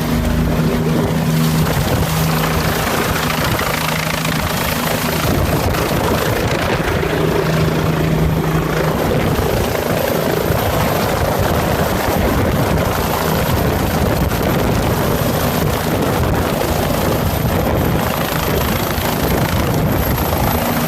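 Helicopter running close to the microphone: the steady noise of rotor and engine, with a low steady hum that drops out for a stretch and returns near the end.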